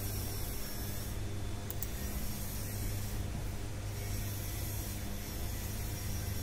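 Steady low electrical hum with an even hiss, the constant background noise of the recording setup, with a couple of faint clicks about two seconds in.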